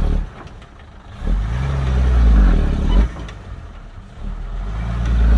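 Hyundai dump truck's diesel engine revved hard in repeated surges, each rising in pitch and then dropping off sharply, as the driver tries to drive the truck out of deep mud where it is stuck.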